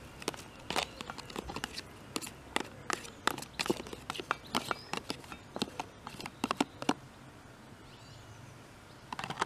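Metal fork scraping and tapping against a plastic spread tub, a quick irregular run of sharp clicks and scrapes as food is scraped out into a foil tray; it stops about seven seconds in.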